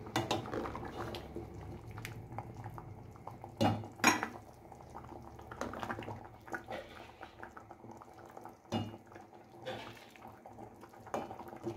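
A serving ladle clinking against a stainless-steel pot and a glass bowl as soup is ladled into the bowl, with a handful of sharp knocks spread through.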